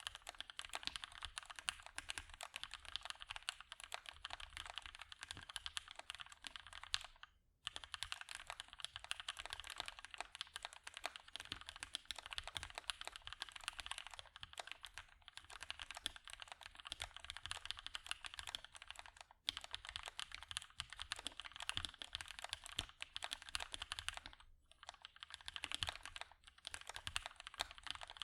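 Fast, continuous typing on a custom mechanical keyboard: Gateron Hippo switches, lubed and filmed, on a POM plate with GMK keycaps, giving dense rapid keystrokes. Typing stops briefly three times.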